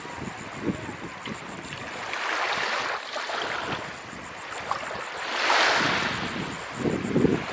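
Small waves on the Chesapeake Bay washing in, swelling about every three seconds, with wind buffeting the microphone.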